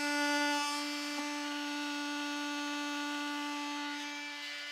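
Cordless oscillating multi-tool running at a steady high buzz as it cuts a small square hole through a vehicle's door panel.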